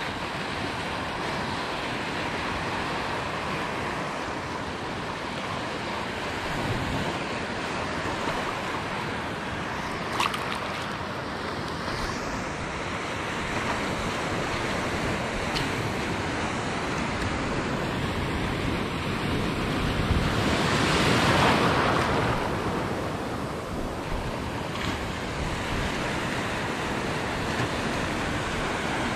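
Surf washing over a shallow rocky reef, with wind on the microphone: a steady rushing wash that swells louder about twenty seconds in, then eases.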